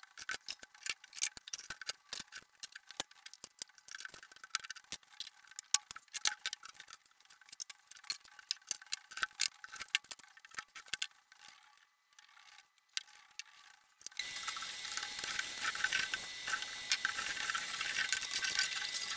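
Rapid, irregular clicking and clattering of small objects being handled. About 14 seconds in, a canister vacuum cleaner starts and runs with a steady rushing noise and a thin high whine.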